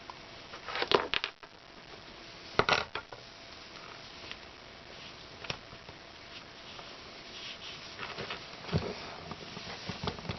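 Tubing being cut and handled on a workbench: a few short, sharp crunching snips, the loudest about a second in and near the three-second mark, then smaller scattered clicks and rustles of handling.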